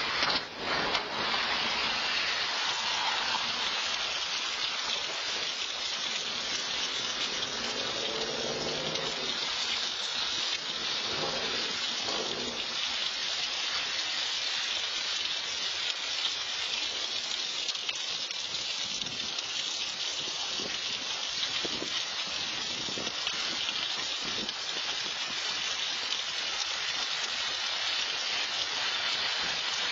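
Steady hiss of rain falling on a wet street and surfaces, with a brief loud knock right at the start.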